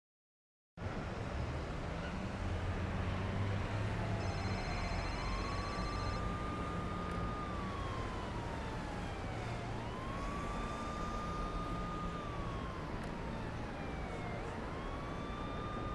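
Street ambience: a low traffic rumble with an emergency-vehicle siren wailing slowly, rising, holding high for about two seconds, then falling, about three times over. It cuts in about a second in, after silence.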